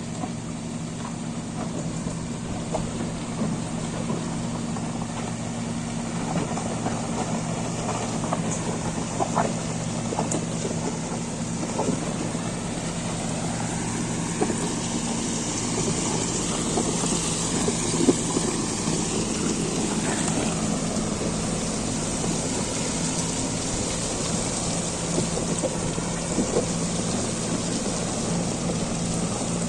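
Diesel engine of a Caterpillar 140GC motor grader running steadily, with scattered small knocks and crackles over it.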